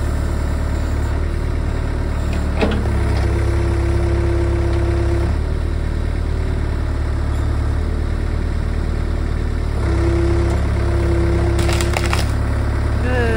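Cat 307 excavator's diesel engine running steadily, its note shifting a few times as the hydraulics take and release load. Wood cracks sharply about two and a half seconds in, and there is more cracking near the end, as the stump and its roots are pried loose.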